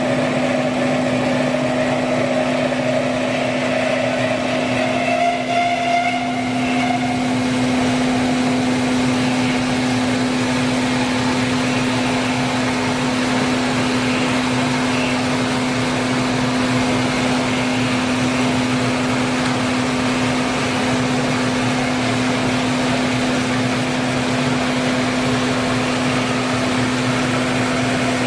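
Kotec Newrun 10DX H-beam drilling line running: a steady machine hum under an even mechanical noise, with a higher motor tone that rises slowly over the first seven seconds or so and then stops.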